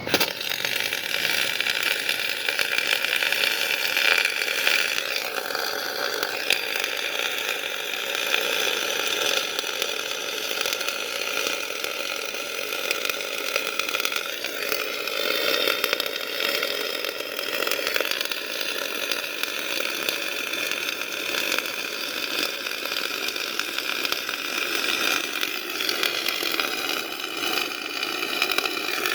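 Semi-automatic (MIG) welding arc: a steady buzzing hiss that starts abruptly and holds on with small wavers.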